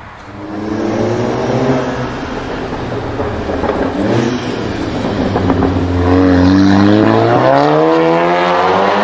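Volkswagen Golf 7 R's turbocharged four-cylinder accelerating hard through its iPE aftermarket exhaust. The engine note rises, breaks briefly at a gear change about four seconds in, then climbs steadily in pitch again.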